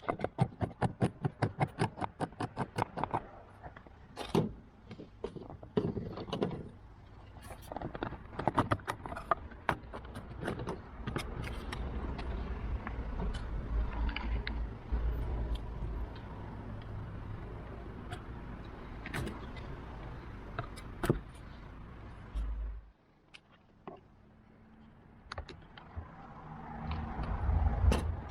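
Clicks, knocks and clatter of tools and plastic trim clips as a car door trim panel is pried off. It opens with a quick run of about five clicks a second, then scattered knocks over a low rumble, which stops abruptly about 23 seconds in.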